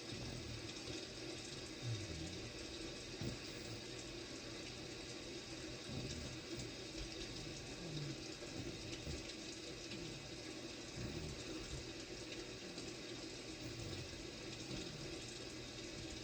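Baby snoring softly, a short low rasp on each breath every second or two, under a steady hiss that dominates.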